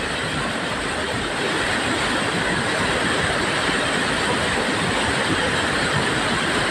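Steady, loud rushing of a fast-flowing, muddy flash-flood torrent in a hill stream.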